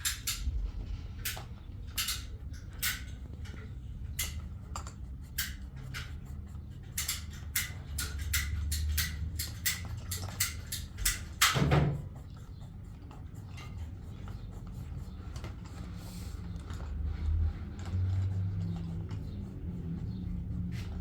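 A quick, irregular run of light clicks and taps, ending in one louder knock about twelve seconds in, then only a low steady rumble.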